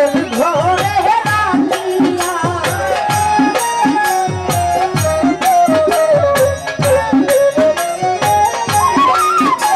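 Live Bengali folk (jari) music: a hand drum keeps a steady beat with bass strokes that slide down in pitch about twice a second, under jingling rattle-like percussion and a melody line. A woman's singing voice is heard near the start, and the rest is instrumental.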